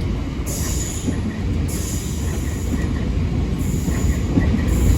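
Freight train hauled by a Class 66 diesel locomotive running through, a steady low rumble of wheels and wagons, with a high wheel squeal that comes and goes several times.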